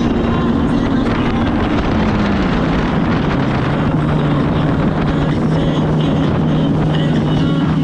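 Jet ski engine running under way, with wind noise and water rush. The engine note drops about two seconds in as the throttle eases back, then holds steady at a lower speed.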